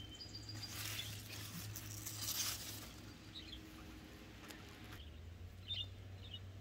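Mustard green and green onion leaves rustling softly as they brush close to the microphone, with a few faint bird chirps in the second half.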